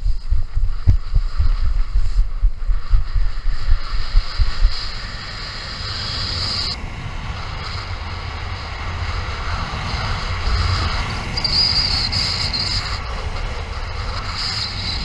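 Wind buffeting an action camera's microphone during a paraglider launch: irregular low thuds of the pilot's running steps for the first five seconds or so, then a steadier rush of airflow once airborne.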